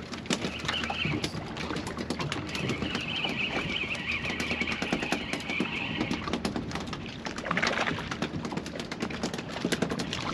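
Spinning fishing reel being cranked fast, with quick clicking and whirring as hooked mackerel are wound up on feathers; a higher squeaky whine joins in from about three to six seconds in.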